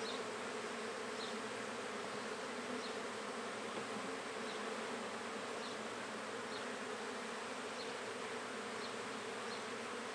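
Honey bees of a freshly hived swarm humming steadily in an opened nuc box packed with bees.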